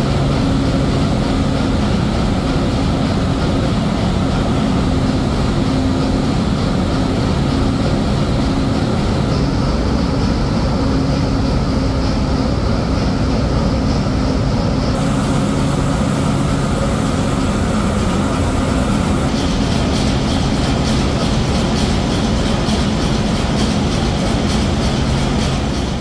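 Container ship's engine room at sea: the main diesel engine and surrounding machinery running, a loud steady drone with a low hum. Its tone changes abruptly a few times.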